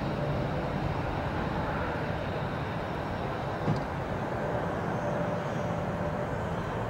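Steady jet noise from a Boeing 747's four engines on landing approach as it comes in low over the runway, with a faint steady whine and a low rumble. One short thump about halfway through.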